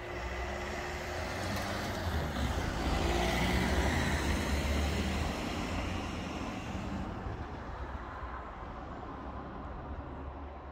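A car driving over the level crossing and past close by, its engine and tyres growing to loudest about four seconds in, then fading away.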